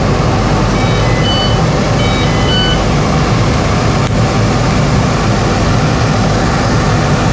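Steady low rumble of running welding-shop machinery. A short run of high electronic beeps at several pitches comes about a second in.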